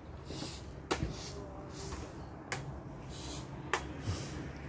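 Machete chopping green jelly coconuts: three sharp strikes about a second and a half apart.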